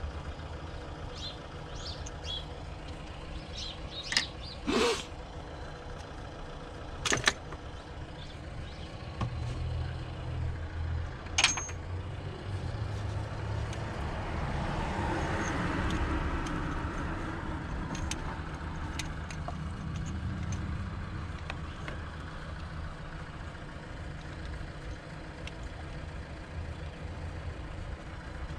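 A few sharp metallic and plastic clicks and knocks in the first dozen seconds as the VTEC solenoid on a Honda D-series engine is unplugged and unbolted by hand. Underneath is a steady low traffic rumble, with a vehicle passing about fifteen seconds in.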